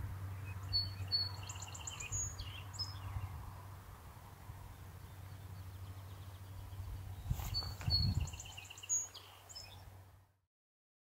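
A songbird singing a short phrase of quick, high notes, twice, about six and a half seconds apart, over a low steady hum and rumble. All sound stops shortly before the end.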